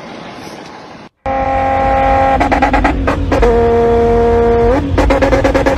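Wind and surf noise for about a second. Then a car driving at speed with a door open: a loud, steady droning tone that drops and rises in pitch a few times, over heavy road and wind rumble, with regular short clicks.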